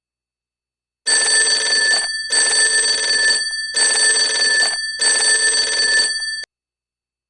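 Telephone bell sound effect ringing four times, each ring about a second long with short gaps, starting about a second in and cutting off sharply.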